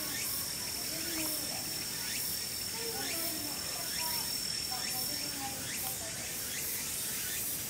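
Insects shrilling steadily, with one high, even trill that cuts off about five seconds in.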